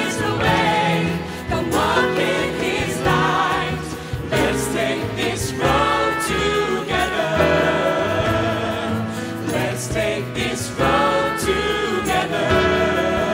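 A gospel-style worship song performed live: several voices singing together in harmony over a band with upright bass and a steady beat.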